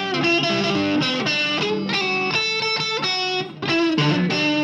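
Electric guitar playing a punk song intro with light distortion, a riff of notes changing about twice a second, with a short break about three and a half seconds in.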